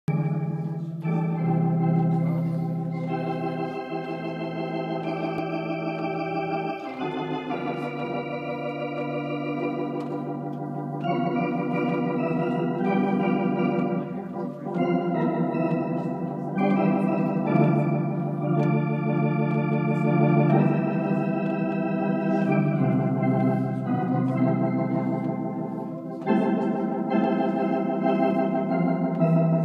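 Electronic console organ played: sustained chords with a wavering vibrato over a held bass note, the harmony changing every second or two.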